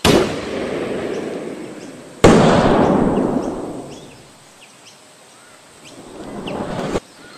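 Two rifle shots about two seconds apart, the second the louder, each followed by a long rolling echo that dies away over about two seconds. Near the end a swelling rush of noise breaks off abruptly.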